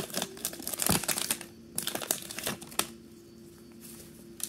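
Foil wrapper of a Pokémon trading-card booster pack crinkling as the cards are slid out of it, for about the first two seconds, followed by a couple of light clicks of cards being handled.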